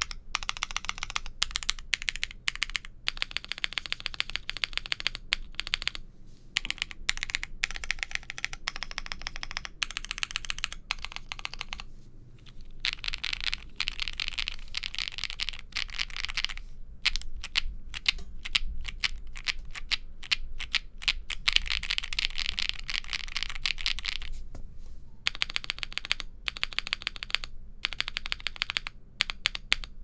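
Cidoo V75 Plus mechanical keyboard being typed on: factory-lubed Cidoo Mint linear switches in a gasket-mounted polycarbonate plate, with case and plate foam but no PE foam, under GMK Villanelle keycaps. Runs of fast keystrokes broken by a few brief pauses.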